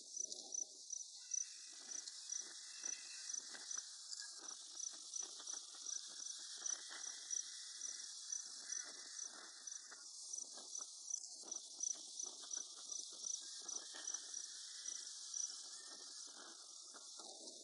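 Insect-like high chirping, about two or three evenly spaced chirps a second, over a steady high hiss, with irregular gusty lower noise underneath.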